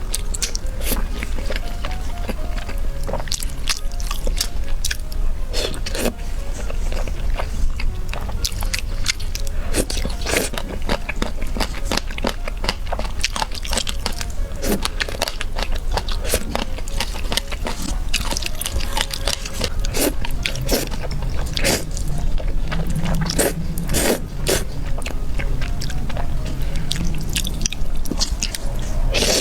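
Close-miked eating: many short, sharp bites and chewing sounds.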